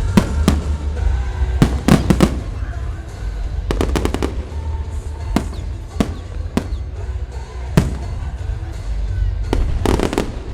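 Fireworks bursting in a series of sharp bangs, several coming in quick clusters of three or four, over a steady low rumble.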